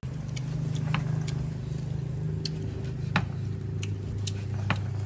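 A chef's knife slicing grilled beef on a wooden cutting board, with scattered sharp taps of the blade against the board about once every half second, over a steady low hum.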